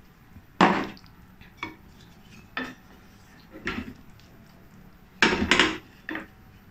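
Wooden spatula knocking and scraping against a stainless steel pan as a simmering braise is gently stirred. The knocks come one at a time, about one a second, with the loudest cluster about five seconds in.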